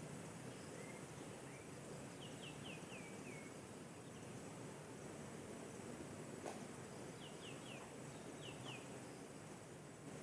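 Steady outdoor background noise with a bird calling in short runs of quick descending notes: about five a couple of seconds in, then three and two more near the end. A single sharp click falls about two-thirds of the way through.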